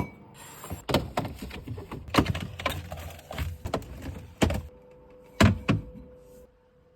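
A string of sharp knocks and clunks as containers and refrigerator drawers are handled and set in place, the last two close together about five and a half seconds in, followed by a faint steady hum.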